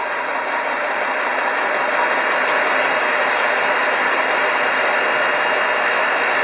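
Soy protein food extruder running steadily as it pushes out textured protein, a loud, even machine noise.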